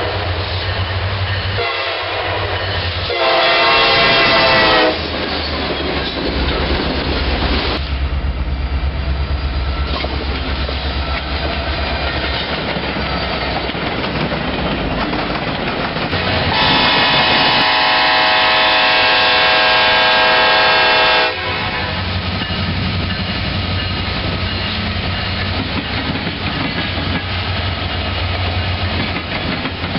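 Diesel freight trains running past with a steady low rumble and rail noise. A locomotive air horn blows a short blast a few seconds in and a long blast of about four and a half seconds past the middle.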